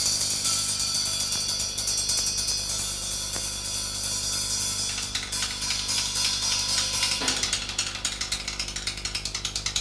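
Percussion music dominated by cymbals: a shimmering cymbal wash, then quick repeated cymbal strikes from about five seconds in that settle into a regular beat of about three a second near the end, over a steady low hum.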